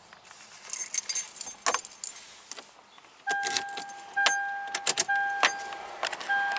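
Car keys jingling and clicking as a key is put into the ignition of a 2003 Toyota 4Runner and turned. About halfway through, the vehicle's warning chime starts, a steady beep repeating roughly once a second.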